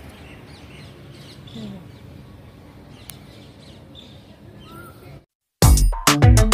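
Faint outdoor ambience with scattered small bird chirps, which cuts off about five seconds in. After a brief silence, loud rhythmic music starts.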